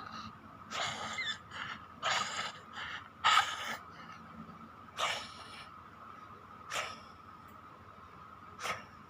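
A sleeping dog snoring: a run of short, noisy, rasping breaths at uneven spacing. The loudest comes about three seconds in, and the later ones are fainter and further apart.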